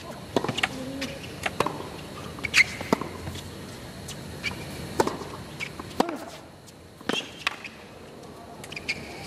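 Tennis rally on a hard court: sharp strikes of racket on ball and ball bounces, spaced about a second or more apart, with short squeaks of shoes on the court between them over a low crowd hush.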